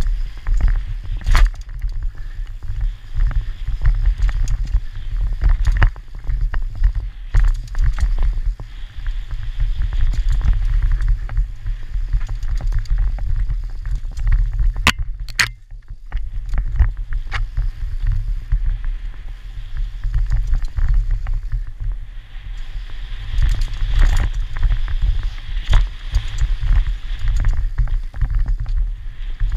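Mountain bike descending a rough dirt trail fast: steady deep wind-and-trail rumble on a helmet-mounted camera, with constant rattles and knocks from the bike over roots and bumps. A brief lull about halfway through, marked by a couple of sharp clicks.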